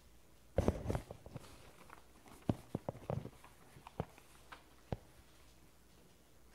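Loose sheets of paper handled and shuffled at a lectern: a burst of rustling about half a second in, then a handful of separate sharp taps and rustles.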